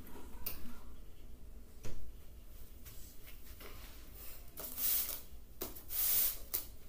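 Handling noise on a carpeted floor: a single thump about two seconds in, then two short swishes near the end as the cardboard-and-foam telescope box and a paper sheet are moved about.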